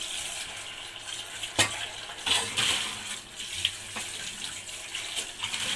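Tap water running into a metal kitchen sink as a pot is rinsed, with a few sharp knocks of the metal pot against the sink, the loudest about one and a half seconds in.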